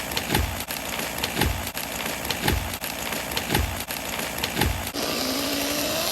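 Stihl chainsaw running, with five heavy thumps about a second apart; about five seconds in the saw revs up with a rising whine.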